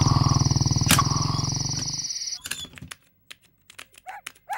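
Motorcycle engine running as the bike rides off, its pulsing note fading, then cutting off abruptly about two and a half seconds in. After that come light scattered clicks of typing on a keyboard and two short high calls near the end.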